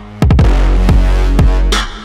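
Electronic music with a deep bass. After a brief drop-out, a quick run of hits falling sharply in pitch comes in about a quarter second in, followed by two more. A final hit near the end rings out as the track fades.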